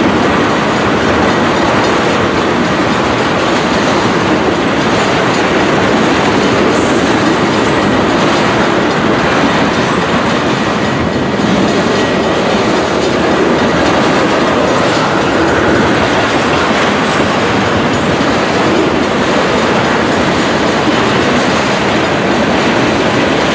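Freight train of ethanol tank cars rolling past close by, a loud, steady rumble with the wheels clattering over the rail.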